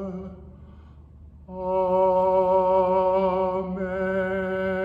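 A man's voice chanting the closing sung 'Amen' of a Lutheran Vespers prayer: the last held note of 'forever' fades, a pause of about a second follows, then 'A-men' is sung as a long note on one steady pitch, the vowel changing partway through.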